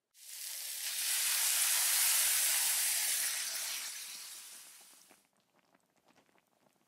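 Food sizzling hard in a hot iron sukiyaki pot. The sizzle starts suddenly, holds for about three seconds, then dies away into faint crackles.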